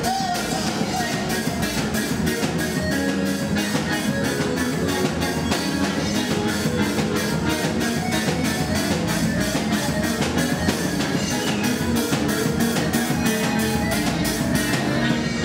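Live dance band playing a fast number on electronic keyboard and drum kit, with a quick steady beat.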